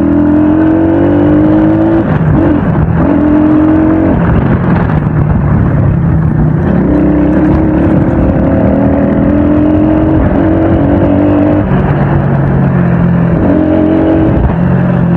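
Motorcycle engine under way and accelerating, its pitch climbing in repeated runs of a few seconds, each ending in a drop before it climbs again.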